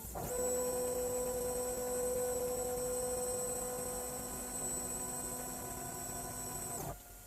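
A steady electrical hum with several overtones that comes on just after the start and cuts off suddenly about seven seconds in.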